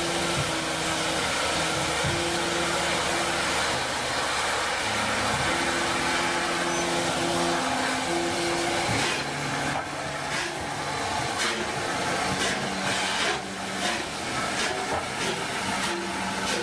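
Three-cylinder rebuilt Bulleid Battle of Britain class locomotive 34053 'Sir Keith Park' starting away, its cylinder drain cocks hissing steadily. About nine seconds in the exhaust beats begin as sharp chuffs, coming faster as the engine gathers speed.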